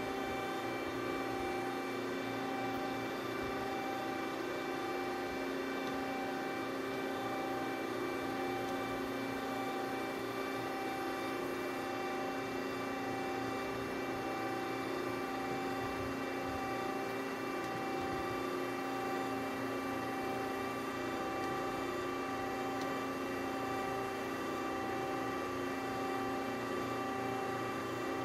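Amada RG50 hydraulic press brake standing powered up, its pump motor running with a steady hum of several constant tones that do not change.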